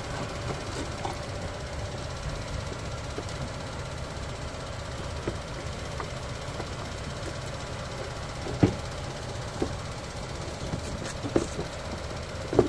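Plastic fender liner being pushed and flexed into the wheel well by hand: scattered knocks and clicks, the loudest about nine seconds in, over a steady low hum.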